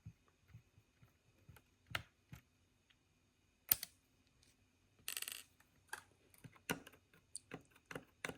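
Scattered light clicks and taps of small plastic parts being handled while the couplers are pried off an Athearn model locomotive, with a sharp tap just before four seconds in and a short rattle about five seconds in.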